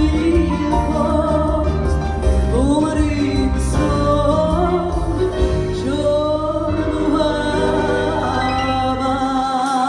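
A woman singing long held notes with wide vibrato over a live band with electric guitars, keyboards and bass. The bass drops out suddenly near the end as the song closes.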